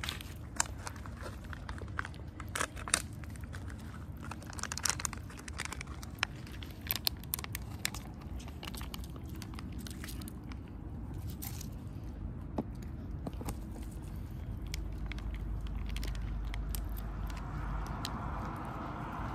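Several cats eating dry cat food from a plate, with many quick crisp crunches of kibble being chewed, busiest in the first half and thinning later. A low rumble builds in the last few seconds.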